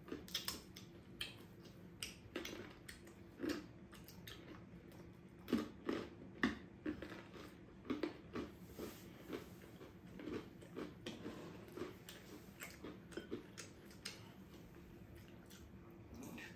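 Close-up eating sounds: chewing and biting into pizza, with irregular light clicks and knocks of chopsticks against ceramic plates.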